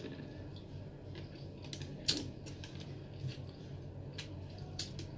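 Eating sounds as fried marinated milkfish (daing na bangus) is bitten and chewed: scattered sharp clicks and smacks, the loudest about two seconds in.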